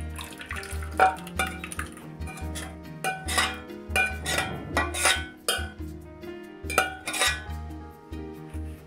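A metal spoon scraping and clinking against the rim and inside of a stainless steel pot as thick tapioca milk pudding is pushed out of it, in a run of sharp clinks and scrapes.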